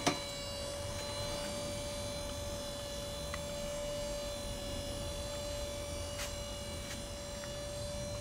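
Homemade visco fuse machine running at low speed, its 12-volt wiper motors giving a steady electric whine, with a couple of faint clicks about six and seven seconds in.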